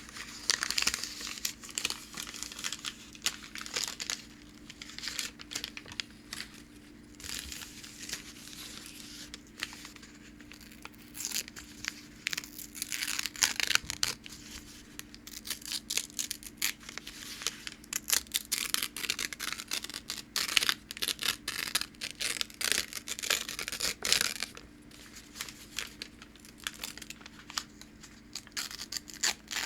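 Packing paper torn by hand, scratchy rips and crisp crackles coming in bursts with short pauses between.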